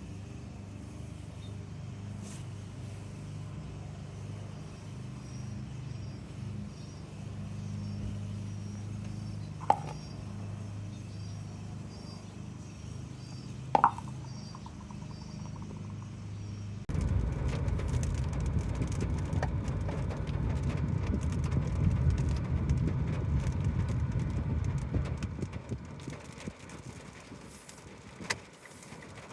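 Lawnmower's small engine running steadily, with faint bird chirps above it. About 17 seconds in it turns abruptly louder and rougher, easing off again near the end.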